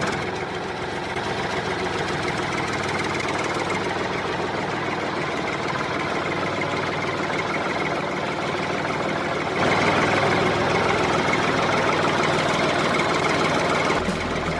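Motor running steadily, getting louder about ten seconds in.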